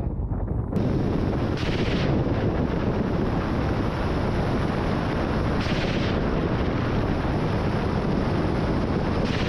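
Sustained heavy weapons fire, a dense unbroken crackle that starts just under a second in, with three louder bursts spread through it.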